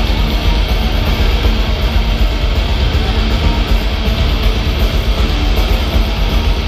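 Black metal band playing live at high volume, heard from within the crowd: distorted guitars over drums with a heavy, fast-pulsing low end.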